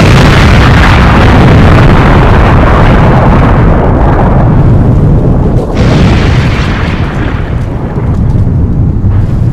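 Loud explosion sound effect: a long, heavy rumble that slowly dies away, with a second blast about six seconds in.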